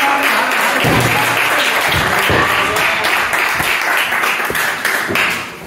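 Small wrestling-hall audience clapping steadily, dying down near the end, after a pin attempt is broken up.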